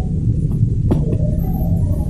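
Homemade four-stroke engine built from a refrigerator compressor, running steadily with a low, rapidly pulsing rumble.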